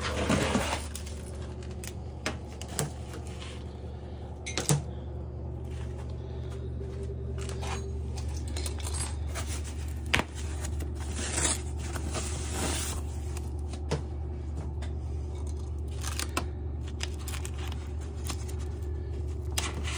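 Foam padding and packing tape being pulled and peeled off an e-bike's frame and fork: rustling and scraping with scattered clicks and knocks, over a steady low hum.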